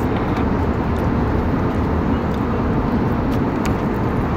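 Steady rushing cabin noise inside an Airbus A320neo airliner, even and unbroken, with a few faint light ticks.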